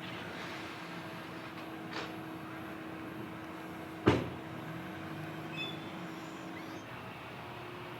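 A construction machine's engine running steadily, with a light knock about two seconds in and a sharp bang about four seconds in.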